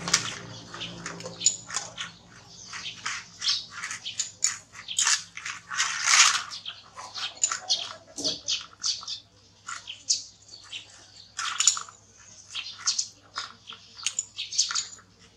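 Two dogs eating rice from plastic plates: an irregular run of quick, wet chewing and lapping clicks, several a second.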